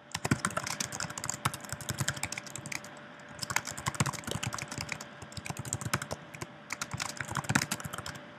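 Fast typing on a computer keyboard: a rapid, uneven run of key clicks as a line of text is typed, with a brief pause about three seconds in.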